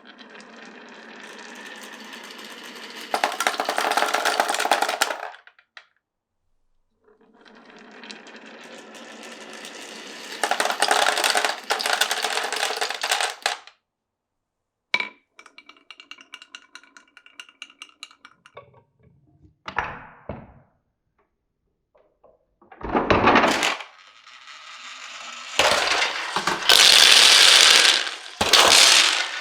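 Glass marbles rolling down a wooden marble run: twice a steady rolling rumble that grows louder partway through and then cuts off. After that come a sharp click, a run of rapid clicking, and loud clattering bursts near the end.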